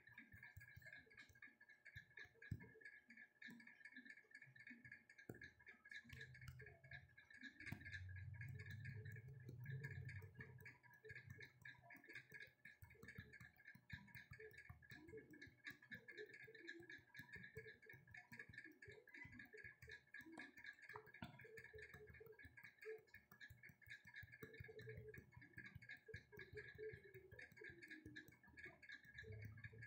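Near silence: faint room tone with a steady faint high hum and scattered faint ticks.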